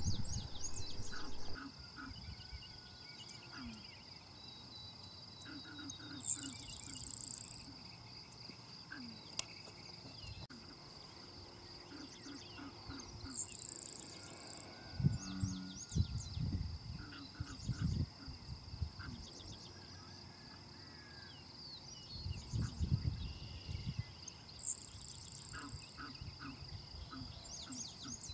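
Outdoor insect chorus: a steady high-pitched trill, with a higher buzz about a second long breaking in three times. Scattered short bird chirps and a few low rumbles lie beneath it.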